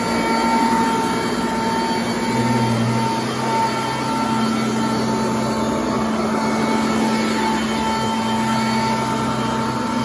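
Sanitaire commercial upright vacuum running on frieze carpet, a steady motor whine with a deeper hum that comes and goes as the head is worked back and forth.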